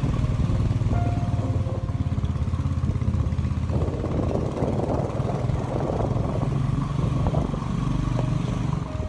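Motorcycle engine running steadily as the bike is ridden. A rushing noise joins for a few seconds near the middle.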